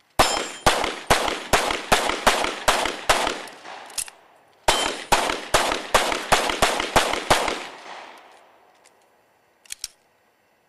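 Pistol shots fired in rapid strings during a practical-shooting stage: about ten shots at two to three a second, a short break, then about eight more at the same pace. The sound trails off in a fading echo after the last shot.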